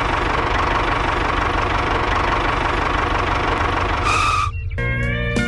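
Tractor engine sound effect running steadily with a knocking beat. About four seconds in there is a brief high beep, and guitar music starts near the end.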